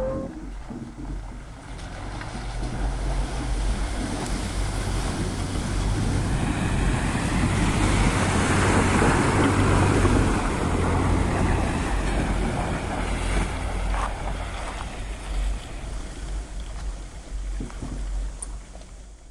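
Steady rushing noise with wind rumbling on the microphone, swelling to its loudest about halfway through and then fading away.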